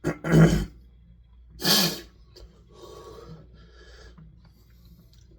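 A man's two loud, sudden sneeze- or cough-like outbursts about a second and a half apart, followed by quieter heavy breathing: a reaction to Carolina Reaper pepper powder burning his mouth.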